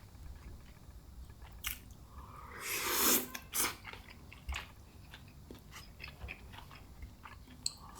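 A person chewing and biting food close to the microphone, with small mouth clicks throughout and a louder noisy swell lasting about a second, around three seconds in.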